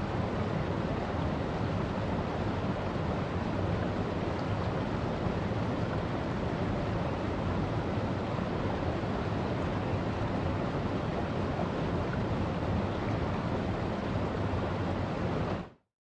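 Shallow mountain stream rushing over rocks and a small cascade, a steady, even rush of water that cuts off suddenly just before the end.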